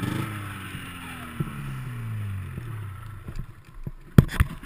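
A 1996 Yamaha V-Max 600 snowmobile's two-stroke engine winding down off the throttle, its pitch falling and settling low as the sled slows. About four seconds in come a few sharp knocks as a hand handles the helmet-mounted camera.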